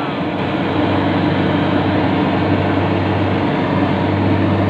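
Yanmar YH850 combine harvester's diesel engine running steadily under way, a loud even hum.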